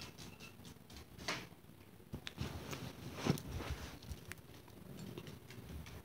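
Soft, irregular footfalls and scuffs on the floor, about one a second, as a dog chases a laser dot around the room.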